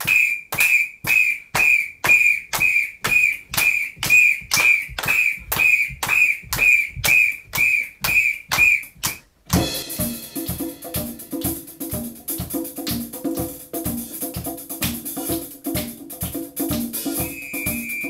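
A whistle blown in short, even blasts, about two a second, each landing with a sharp clap, for about nine seconds. Then a percussion band comes in, with congas and a drum kit with cymbals playing a busy groove.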